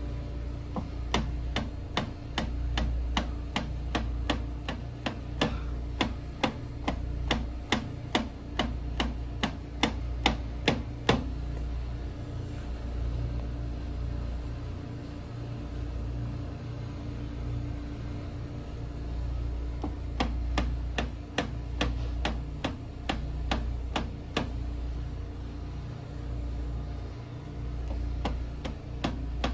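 Rapid, evenly spaced sharp impacts, about three a second, of repeated instep kicks (haisoku geri) striking a hard metal post for shin and foot conditioning. They stop about eleven seconds in and start again several seconds later. A low steady rumble runs underneath.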